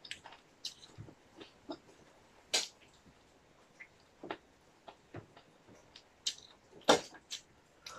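Eating sounds at a meal of rice and curry: scattered short clicks and smacks of chewing and of a spoon and small bowl against dishes, with a sharper click about seven seconds in.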